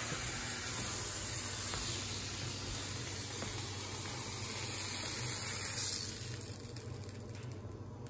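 Canadian bacon sizzling in a hot frying pan, a steady hiss that drops away sharply about six seconds in.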